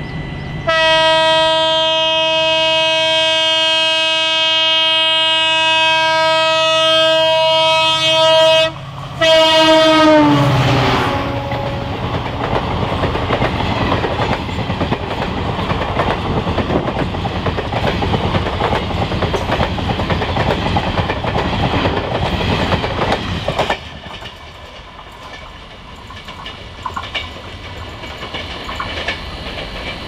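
WDP4D diesel locomotive's horn blown in one long loud blast of about eight seconds, broken off briefly and sounded again, its pitch dropping as the locomotive passes. Then the Jan Shatabdi's coaches rush past with clattering wheels for about thirteen seconds, ending abruptly as the last coach clears, leaving a fainter rumble as the train moves away.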